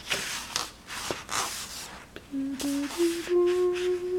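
A few short scratchy rubbing sounds, then a person humming a simple tune from about halfway, stepping between notes and ending on a long held note.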